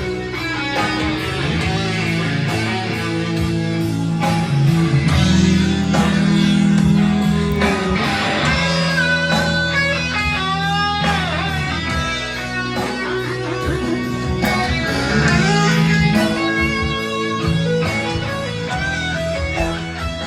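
Background music led by guitar, with sustained bass notes and lead lines that bend in pitch.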